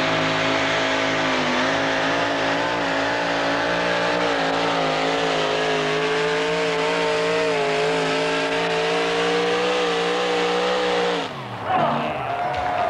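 Two-wheel-drive pulling truck's engine held at full throttle with a steady high-pitched drone as it drags the weight-transfer sled. About eleven seconds in, the pitch falls away sharply as the driver lets off at the end of a full 300-foot pull.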